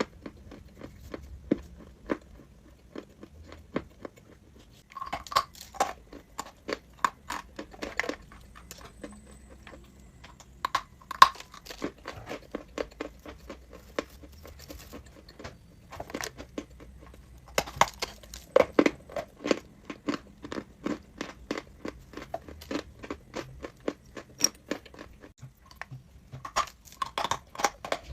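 A person biting and chewing crunchy chalk close to the microphone: dense spells of rapid crunching, with sparser crunches between them.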